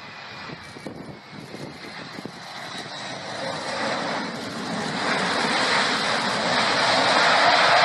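Airplane-flying sound effect: a jet-like rushing roar that grows steadily louder, with a steady engine tone coming in near the end.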